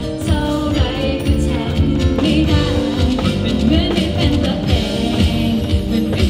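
Live pop band playing amplified through the PA: a woman singing into a handheld microphone over electric bass guitar and a drum kit with a steady beat.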